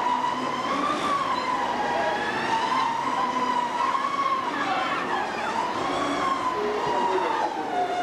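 Riders on a swinging pirate-ship ride screaming together, a continuous high chorus whose pitch rises and falls with no break.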